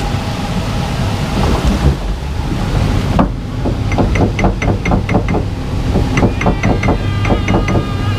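Splash-boat water ride: rushing water and wind noise, joined from about three seconds in by a fast run of regular clacks, about four a second.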